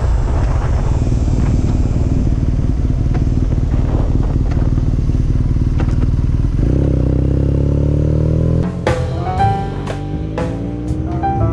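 BMW R nineT's boxer twin, fitted with an Akrapovic full exhaust, running under way with wind rush; about two-thirds in its note changes and rises in pitch as the bike accelerates. Near the end, music with drums comes in over it.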